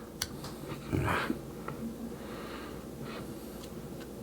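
Soft, irregular swishing of polish being rubbed into a clear plastic toy canopy, with a sharp click just after the start.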